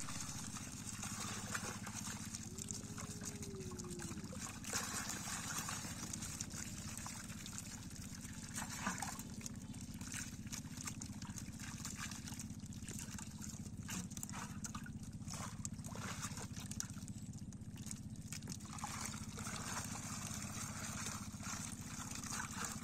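Pond water splashing and trickling as fish are picked by hand out of a drawn-in net in shallow water and dropped into plastic bowls, with a steady low hum underneath.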